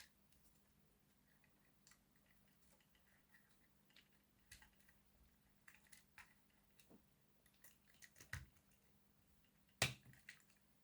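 Near silence broken by scattered faint clicks and taps of small plastic model locomotive parts being handled, with one sharper click near the end.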